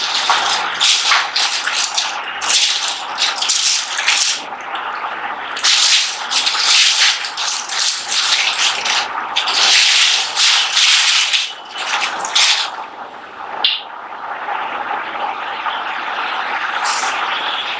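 Cardboard box and plastic wrapping rustling and crinkling in irregular bursts as an audio mixer is unpacked by hand. The bursts die down about three-quarters of the way through, leaving a steady hiss with a single sharp click.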